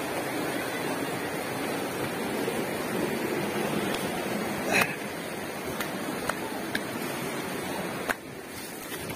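River water rushing among boulders as a steady noise, with one sharp knock about five seconds in and a few lighter clicks after it. The rushing falls away a little near the end.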